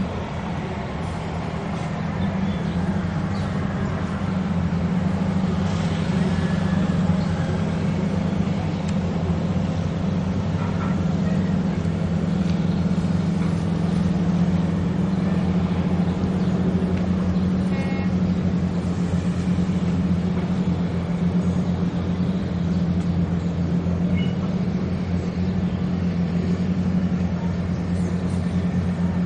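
Steady low mechanical drone, an engine-like hum that holds even throughout.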